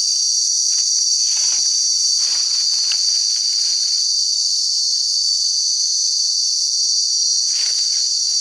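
Steady, loud, high-pitched chorus of forest insects buzzing without a break, with a few soft rustles.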